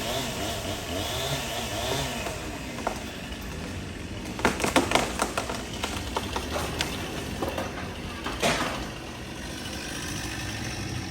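A small engine revving up and down during the first two seconds, followed by a run of sharp cracks and knocks between about four and eight and a half seconds in, the last one the loudest.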